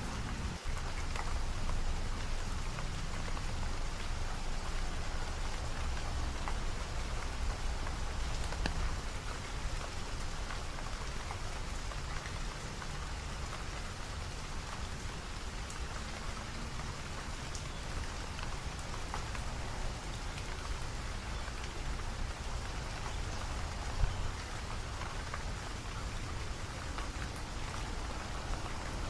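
Steady rain falling, with scattered drops ticking and a low rumble underneath. Late on, one sharper tap stands out.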